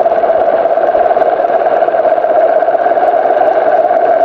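RC car's motor and gears whining steadily as it drives, heard through a camera mounted on the car.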